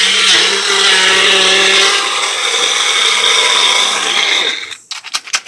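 Magic Bullet blender motor running steadily, blending ice and fruit into a smoothie, then cutting off about four and a half seconds in. A few sharp clicks and knocks follow as the cup is handled.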